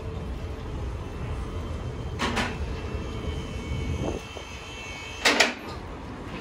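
Steady low street-traffic rumble, with two short noisy bursts about two and five seconds in, the second one the loudest.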